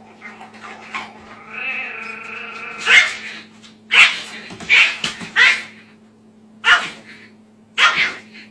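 A tiny puppy guarding its food bowl from a bigger dog: a drawn-out growl, then about six sharp, high-pitched yaps.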